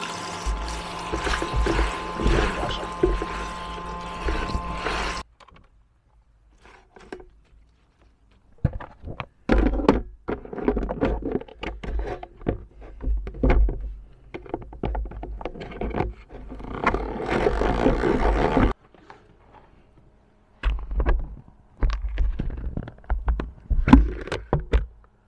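Water running from a small tap onto wild garlic leaves in a plastic salad spinner basket, stopping about five seconds in. Then the salad spinner is spun in several spells, its plastic parts clattering and knocking, and the lid is lifted off near the end.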